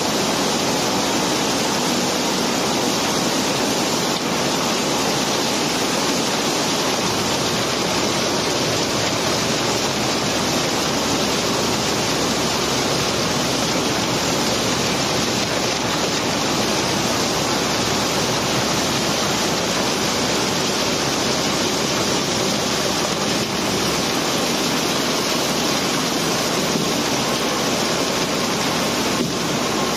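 A mass of cobblestones sliding and pouring out of a barge's hold, making a steady, unbroken rushing noise.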